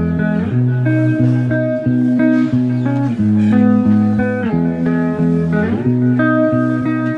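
Background instrumental music: a plucked-string melody of short stepping notes over a low bass line.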